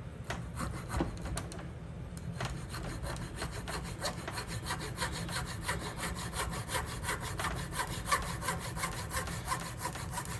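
Small hacksaw cutting through a wooden dowel: a few scattered strokes at first, then quick, even back-and-forth strokes, several a second.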